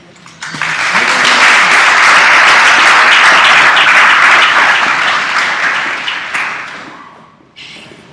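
Audience applauding: the clapping starts about half a second in, holds strong for several seconds, then dies away near the end.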